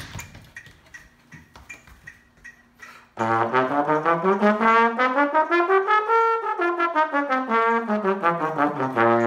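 Low brass instrument playing a quick scale, note by note, up about two octaves and back down, starting about three seconds in and ending on a held low note.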